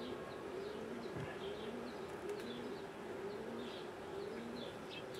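Honey bees buzzing over an open hive in a steady, wavering hum. Birds call behind it, with repeated short low notes and quick high chirps.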